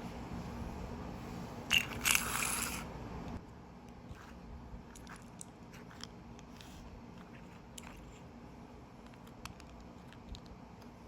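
Small-object handling: a brief crunchy rustle about two seconds in, then scattered small clicks and taps.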